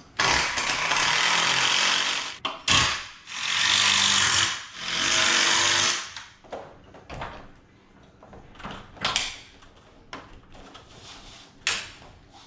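A power drill runs in three bursts of about two seconds each, driving screws to mount roller-shade brackets at the top of a window frame. After the bursts come scattered knocks and clicks from handling the hardware.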